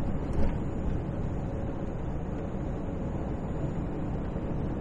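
Steady drone of a semi-truck at highway speed, heard from inside the cab: engine and tyres on a wet road, with one short knock about half a second in.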